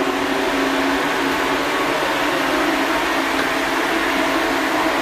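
Electric blower motor of the bathtub-refinishing spray setup running steadily, a constant whirring air rush with a steady hum.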